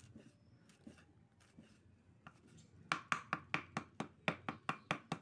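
Kitchen knife chopping dried coconut husk (cocopeat) against a wooden plank. A few faint taps come first, then from about three seconds in a fast, even run of chops, about six a second.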